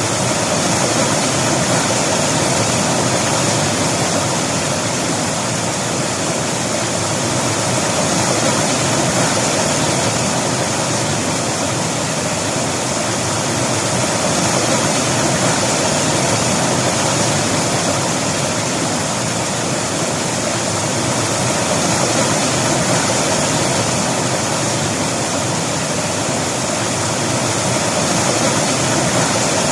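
River water flowing and rushing steadily, a constant loud wash that swells gently every few seconds.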